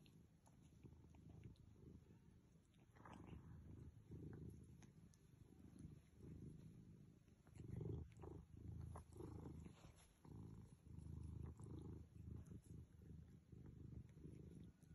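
Domestic cat purring close up, a faint low rumble that swells and dips with each breath.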